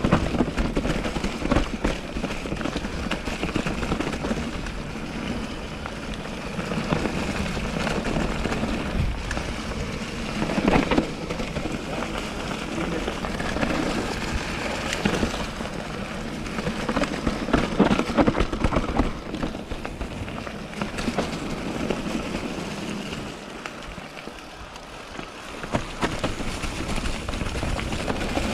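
Mountain bike rolling down a dry-leaf-covered forest trail: tyres crackling through the leaf litter, with a steady rush and frequent sharp clicks and knocks as the bike rattles over roots and stones, at a lower level for a couple of seconds near the end.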